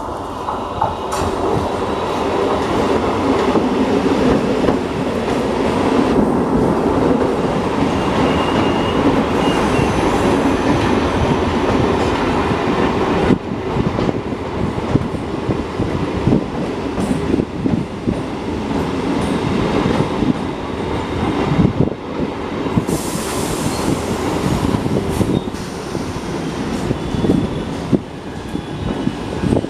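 Electric multiple unit local train with old ICF and Jessop-built coaches running along the track, a steady rumble with wheels clattering over rail joints and a brief thin wheel squeal.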